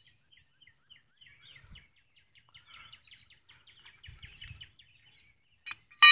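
Faint, rapid bird chirps in the background. Near the end comes a short ringing metal clink, then a louder one, as steel parts of the scroll compressor are knocked together.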